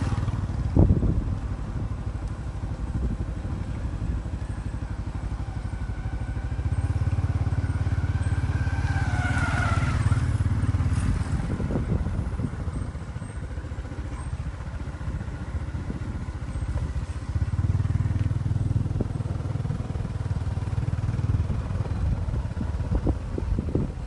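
A vehicle engine running with a steady low rumble that swells louder twice, with a faint gliding whine near the middle.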